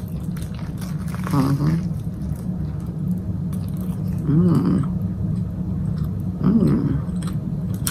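A woman chewing a mouthful of toasted bacon, egg and cheese sandwich, with faint wet mouth clicks. Three short closed-mouth "mmm" hums come about a second and a half, four and a half, and six and a half seconds in. A steady low hum runs underneath.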